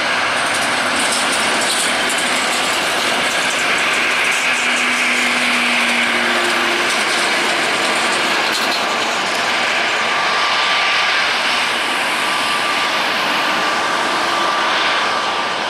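Boeing 737-800's CFM56-7B turbofan engines running at low taxi thrust as the airliner taxis close by: a loud, steady jet rush, with a steady engine whine joining about two-thirds of the way through.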